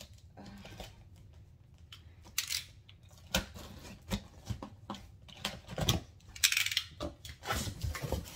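A cardboard shipping box being opened by hand: scattered taps and knocks on the cardboard, with two short rips, about two and a half seconds in and again around six and a half seconds.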